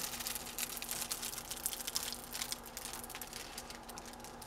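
Rapid small clicks and crinkles from handling the plastic packaging and bags of resin drills of a diamond painting kit, thinning out toward the end.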